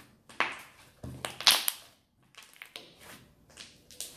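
A large mass of slime squeezed and pressed by hand, giving a string of short sticky squelches and crackles as air pockets in it burst, the loudest about a second and a half in.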